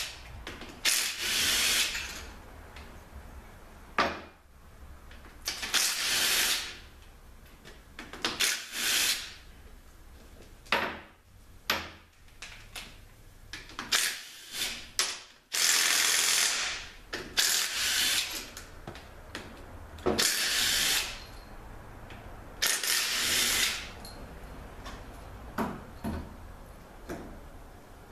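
A ratchet wrench working the bolts of an automatic transmission's extension housing loose, in about a dozen short runs of about a second or less each, with pauses between them.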